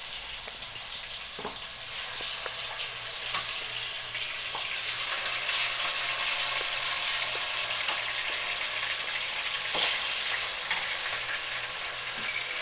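Chicken breast pieces sizzling in hot vegetable oil in a pot as they brown. The sizzle grows louder a few seconds in, with a few light knocks.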